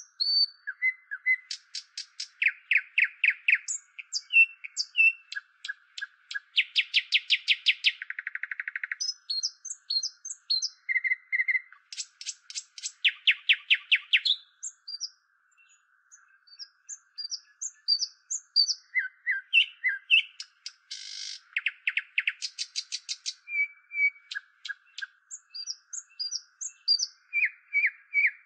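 Indian nightingale singing a long, varied song of rapid trills of repeated notes, fast rattles and short whistled phrases, with a brief pause about halfway through, over a faint steady background hiss.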